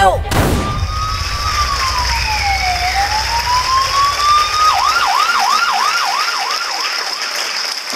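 Siren sound effect played through a theatre's sound system as the dance music cuts off with a falling glide. It runs as one slow wail that falls and then rises, then switches about five seconds in to a fast yelp of roughly three sweeps a second, over a steady high tone.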